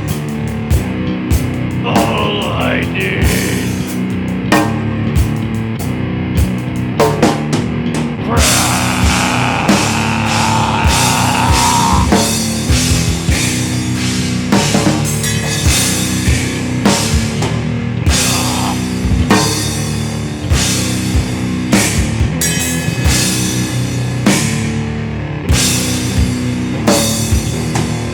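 Heavy rock song played by a band, with drum kit and guitar and frequent hard drum hits and cymbals.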